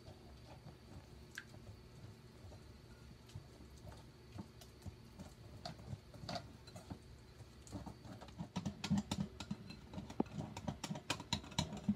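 Wire whisk beating batter in a glass bowl: quick light ticks of the wires against the glass, growing closer together and louder over the last few seconds.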